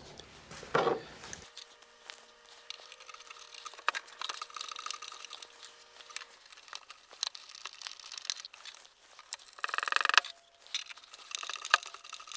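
Hand screwdriver driving small screws through an in-drawer outlet's metal mounting bracket into the back of a drawer: scattered clicks and scrapes of the bit turning in the screw heads, with a short squeal about ten seconds in.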